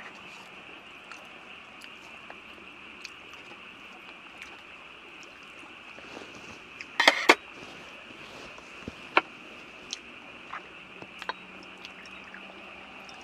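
Close-up mukbang eating sounds of a lettuce wrap of raw fish: sharp crunches and mouth clicks, loudest in a short cluster about seven seconds in, then scattered single clicks. Near the end, soju is poured from a glass bottle into a shot glass.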